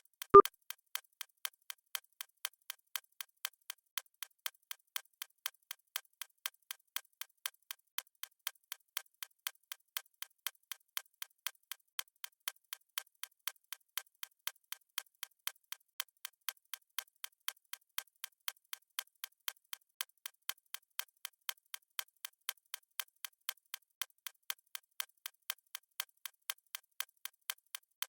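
Clock-style ticking sound effect of a countdown timer: short, even ticks at about three a second. A single louder knock comes at the very start.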